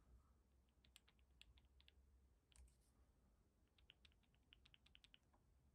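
Near silence with faint, light clicks in two short runs: a finger pressing the plastic purge bulb on a two-stroke hedge cutter's diaphragm carburettor.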